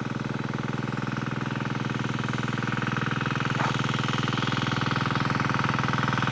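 A motor vehicle's engine running steadily with an even, fast firing pulse. There is a brief sharp sound about three and a half seconds in, after which the engine gets a little louder.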